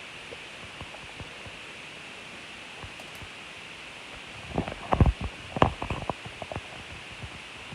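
Steady hiss, then about halfway through a cluster of short knocks and clunks from objects being handled and moved about.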